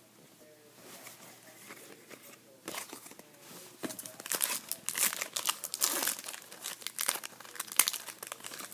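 Foil trading-card pack wrapper crinkling and tearing as it is opened. It starts about three seconds in and grows louder and busier from about four seconds.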